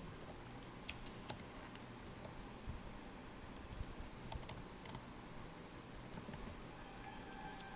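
Faint computer keyboard keystrokes: a scattering of separate, irregularly spaced key clicks as a line of code is copied and pasted into a script.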